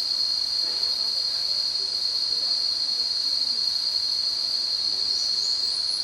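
Cicadas droning: a loud, steady, high-pitched whine without a break. Near the end come a few short rising chirps.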